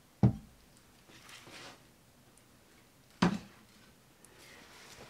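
Two sharp knocks about three seconds apart, with faint rustling between them.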